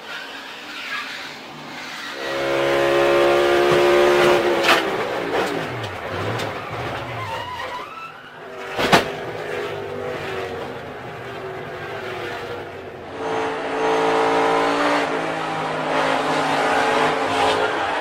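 Onboard sound of NASCAR stock cars in crashes: V8 engines running at speed, their pitch falling as the cars slow, broken by sharp crash impacts. The loudest impact comes about nine seconds in.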